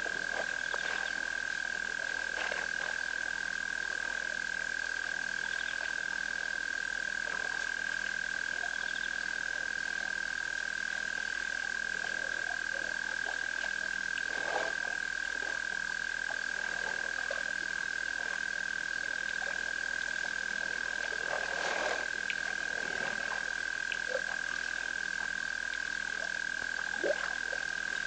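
A chorus of frogs calling at the waterhole at night, merging into one steady high-pitched tone. A few faint brief noises are scattered through it, one a little louder near the end.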